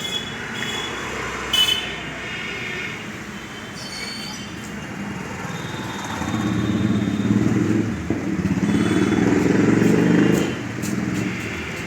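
Road traffic noise, with a passing vehicle's engine swelling louder for a few seconds in the second half. A short click about one and a half seconds in.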